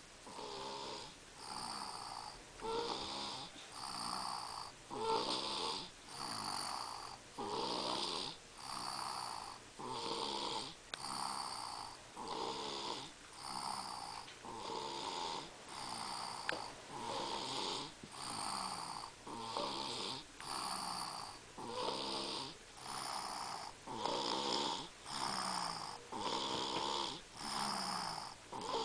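A person with strep throat snoring more heavily than usual, in a regular rhythm of about one snore a second that keeps up steadily.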